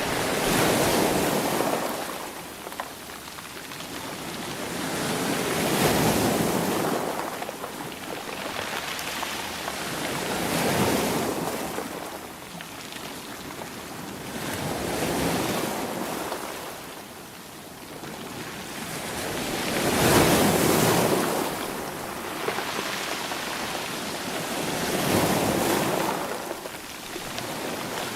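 Sea waves breaking and washing up the shore, each surge swelling and fading away, about every five seconds.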